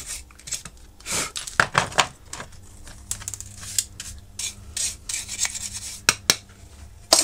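Small cutters nibbling and scraping away the package of a soldered component on a xenon headlamp ballast's circuit board: irregular scraping and rubbing, broken by several sharp crunching clicks.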